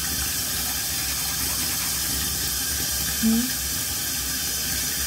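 Bathroom sink tap running steadily. A short voiced sound, a brief hum, comes a little over three seconds in.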